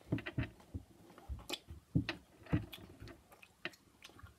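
Irregular small clicks and taps from fingers picking and fiddling at a Mentos packet while trying to get it open, with a few dull low knocks.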